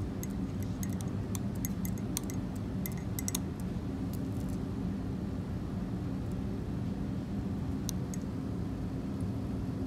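Glass stirring rod clinking lightly against a glass flask of beer: a quick run of small ticks for the first three and a half seconds, then two more near the end. A steady low hum runs underneath throughout.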